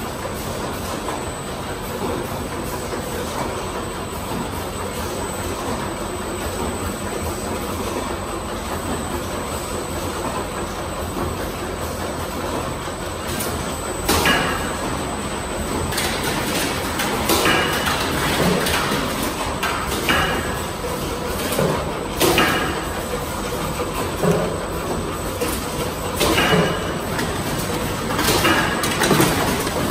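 Automatic bottle filling and packing line running, with a steady machine and conveyor noise. From about halfway through, sharp clacks repeat every second or two.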